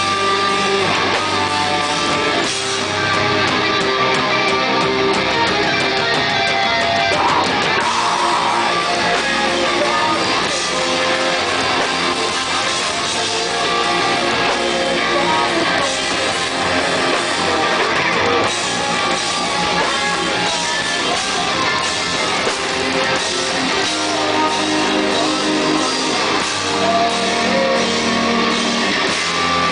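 A live band playing heavy rock: distorted electric guitar chords and riffs over a drum kit with crashing cymbals, loud and continuous.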